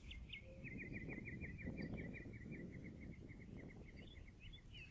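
A bird calling a fast run of short, high chirps, about six a second, which become more spaced and varied near the end, over faint outdoor background noise.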